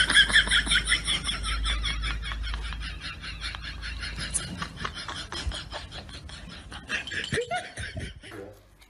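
A person laughing in a long run of quick, high-pitched bursts that trails off over several seconds, followed by a few short voice sounds near the end.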